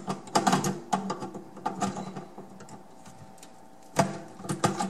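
Pliers gripping and twisting an old plastic drain slip nut on a sink tailpiece, the brittle nut cracking and clicking as it breaks apart. A quick run of clicks and cracks first, a quieter stretch, then one sharp crack about four seconds in and a few more clicks.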